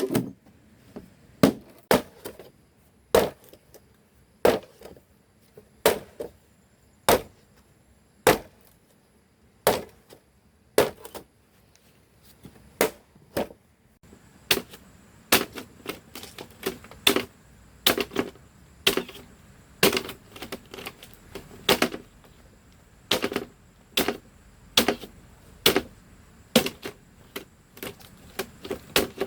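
Repeated sharp chopping blows on wood or bamboo, about one a second at first, then quicker and more uneven with lighter strikes in between from about halfway. A faint, steady high-pitched tone runs underneath from about halfway.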